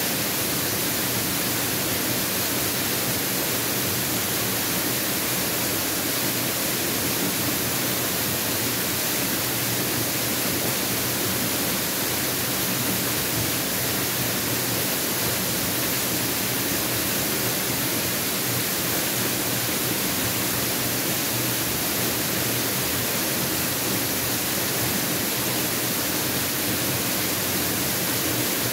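Mountain waterfall rushing: a steady, unbroken wash of falling water with no breaks or changes.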